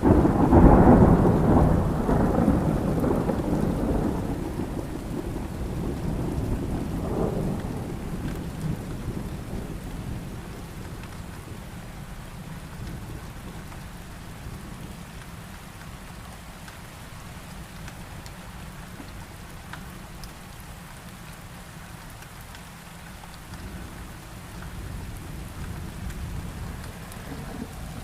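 A thunderclap starts abruptly and rolls on as a deep rumble, swelling again briefly and fading away over about ten seconds. Steady rain falls underneath and continues after the thunder has died away.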